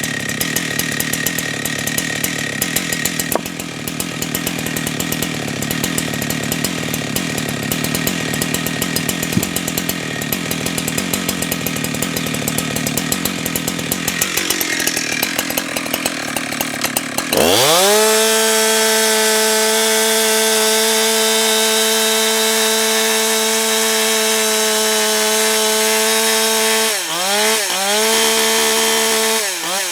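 Husqvarna 365 two-stroke chainsaw cutting through a log under load. About seventeen seconds in the chain breaks free and the engine runs on at a high, steady pitch at full throttle. Near the end the pitch dips twice, then falls as the throttle is let off.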